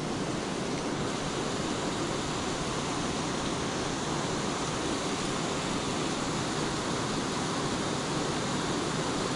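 Steady rush of water spilling over a low river weir.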